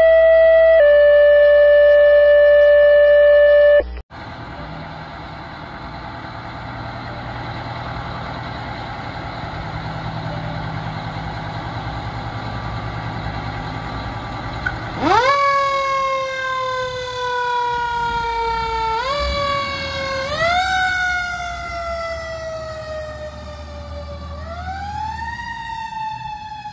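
A loud steady tone for about four seconds, then a fire engine's motor running as it pulls out. About fifteen seconds in, its Federal Q mechanical siren winds up sharply to a scream and coasts down, and is wound up again three more times, the last one a slower rise near the end.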